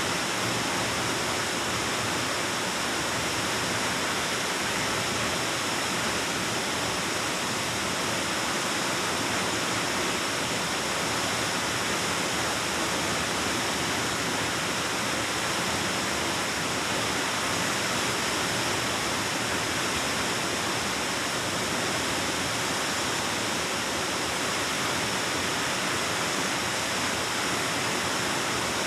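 Waterfall rushing into a cave, a steady unbroken roar of falling water.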